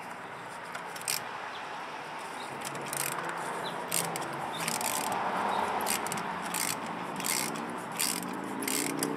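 Ratchet on a spark plug socket and flex adapter, clicking in short runs as a spark plug is worked loose from a Ford 3.5 L EcoBoost V6. The clicks are sparse at first and then come regularly, about every two-thirds of a second, from about three seconds in.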